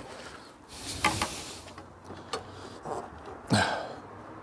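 Irregular scuffs and rustles of hands, sleeve and cable as a wiring loom is wiggled and pulled through a tight gap into the van's engine bay, the loudest scuff about three and a half seconds in.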